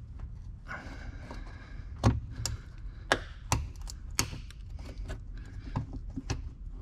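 A trim tool prying and scraping at a small white plastic body clip stuck in a car's cowl panel. It makes a scratchy rubbing sound early on, then a series of sharp clicks and snaps, the loudest between about two and four seconds in, as the brittle clip is worked loose.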